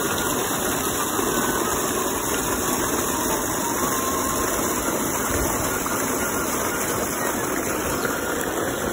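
Irrigation pipe discharging a thick stream of pumped water that splashes into a field channel: a loud, steady rush of water.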